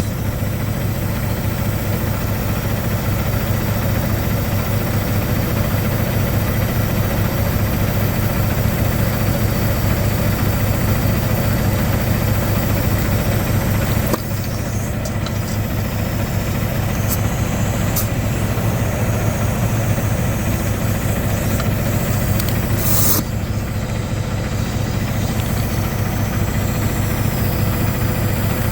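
Semi-truck diesel engine idling steadily, with a steady hiss over it while a tire is aired up from the truck's air system. The sound breaks off abruptly and resumes twice.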